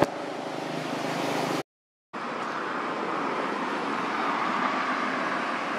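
Steady outdoor background noise, an even hiss with no distinct event, cut off by half a second of dead silence at an edit about a second and a half in.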